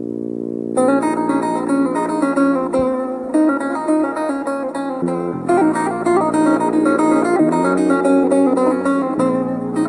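Instrumental music: a held chord, then from about a second in a plucked string instrument picks a quick melody over a sustained bass.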